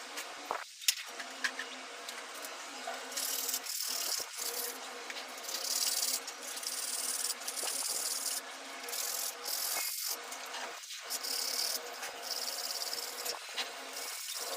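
Irregular bursts of rubbing or scraping strokes, hissy and high-pitched, with a sharp click about a second in.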